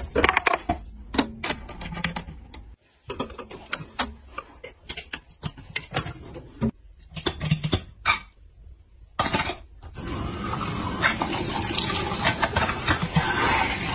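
Short plastic clicks and knocks as the drain hose and pop-up drain stopper are handled, then from about ten seconds in a tap running water steadily into the basin's drain.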